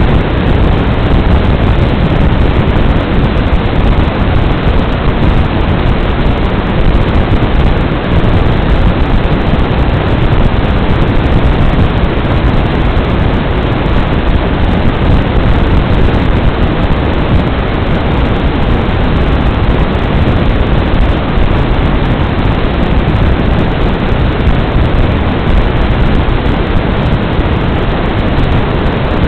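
Steady loud hiss of static from an analog FPV video receiver's audio channel, an even rush of noise with no engine-like whine in it.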